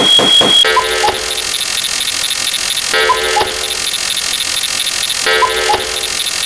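Cuckoo clock sound effect: a two-note falling "cuck-oo" call that repeats about every two and a half seconds, starting under a second in, over a dense mix of other looped sound effects. A steady high phone-ring tone cuts off just before it begins.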